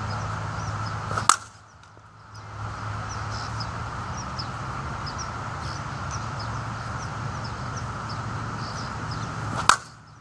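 Two sharp cracks of a slowpitch softball bat hitting pitched softballs, about eight seconds apart; the background drops away for a moment after each. Small birds chirp between the hits over a steady low hum.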